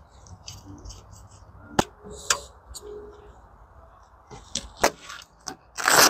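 Metal clinks and sharp knocks of a car side awning's metal poles and frame being handled during set-up, the loudest clatter near the end.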